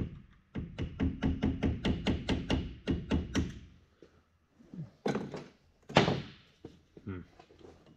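A rapid run of metallic taps, about five a second for some three seconds, with a ringing tone: steel parts of a transmission clutch pack being worked at to free a pressure plate seated too tight against the discs. A few scattered knocks follow, the loudest about six seconds in.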